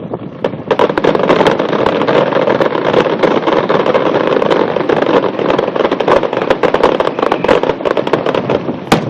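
Fireworks going off in a dense barrage of rapid bangs and crackling, building about a second in to a near-continuous rattle, with a couple of sharper reports near the end.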